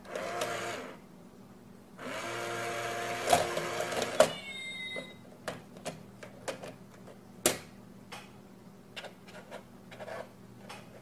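Battery-powered cat coin-bank toy whirring briefly, then again for about two seconds with sharp clacks from its mechanism, followed by a short meow. Then scattered light clicks and taps of paws on the cardboard box and its lid.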